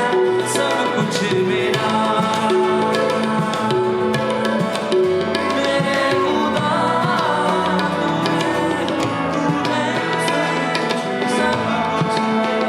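Live worship music: a band playing an instrumental passage with held melodic notes over a steady hand-drum rhythm.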